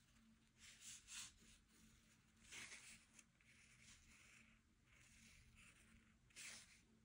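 Faint strokes of an art tool on watercolour paper: a few short, soft swishes, about a second in, near the middle and near the end, over near silence.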